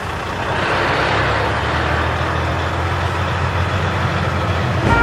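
Heavy truck engine sound, running steadily with a low hum and a noisy hiss over it, growing a little louder about a second in.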